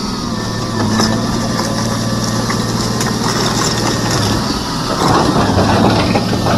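Volvo EC290BLC excavator's diesel engine running steadily, with a few scattered knocks. About five seconds in it grows louder and rougher.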